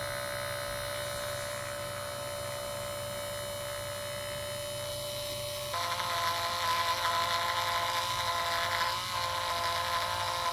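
Small 12-volt DC motor of a commutator trimming lathe, run at about 6 volts, belt-driving a slot car armature with a steady whine. A little over halfway through the sound steps up, louder and rougher, as the cutting tool bites into the spinning copper commutator.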